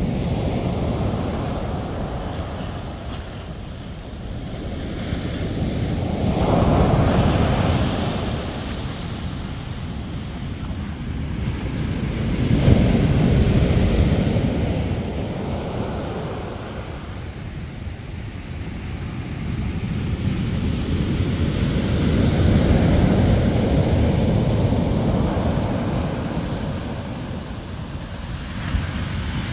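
Ocean surf breaking on the shore and washing up the beach: a continuous rushing that swells and fades in slow surges, with three louder breakers. Wind rumbles on the microphone.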